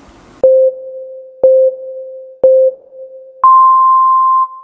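Electronic countdown beeps: three short, lower beeps a second apart, then one longer, higher beep.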